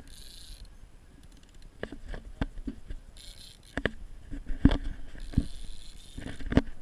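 Irregular knocks and clicks with a few short bursts of hiss as an angler cranks a fishing reel and works a bent rod against a hooked fish; the loudest knock comes a little before five seconds in.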